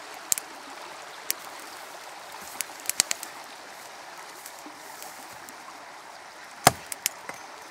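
A hatchet striking wood: one heavy blow near the end, followed by a couple of lighter knocks. Over a steady rushing hiss, a wood campfire crackles with scattered sharp pops.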